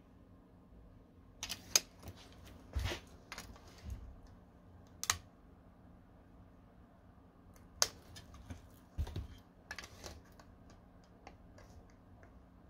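Irregular sharp clicks and light taps as a tape measure is handled and set against a graphics card's shroud, with a lull in the middle.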